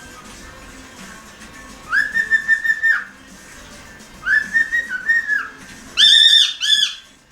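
Pet cockatiel whistling short warbling phrases three times, the last pair of notes near the end louder and shriller.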